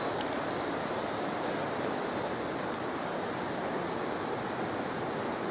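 Steady rushing of flowing water, with a few drips falling from a lifted landing net at the start.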